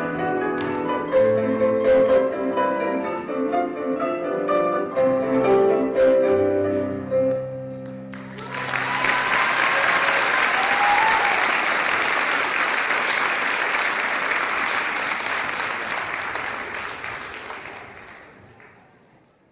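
Music with clear melodic notes comes to its end about eight seconds in. Audience applause follows and fades out near the end.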